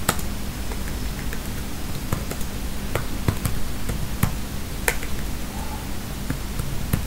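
Computer keyboard keys being typed: a few sharp clicks spaced irregularly, over a steady low hum.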